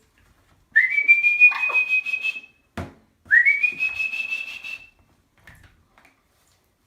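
Amazon parrot giving two long whistles, each sliding quickly up and then held, with a short knock between them.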